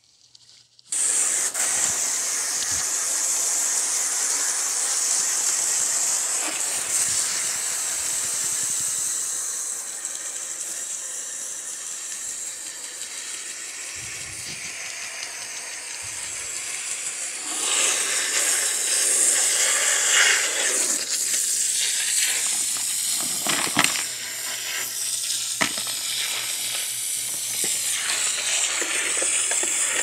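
Garden-hose spray wand hissing steadily as it jets water onto the condenser coil fins, rinsing the dirt out. The spray starts abruptly about a second in, eases somewhat after about ten seconds, gets louder again past the middle, and a few short knocks come near the end.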